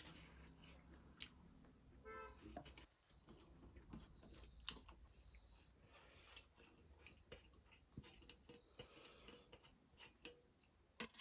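Steady high-pitched chirring of crickets in the background, with faint clicks of steel dishes and eating sounds. A short pitched note sounds about two seconds in.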